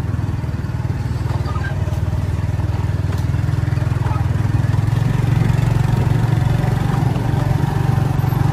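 A vehicle engine running steadily, a low drone that swells a little past the middle.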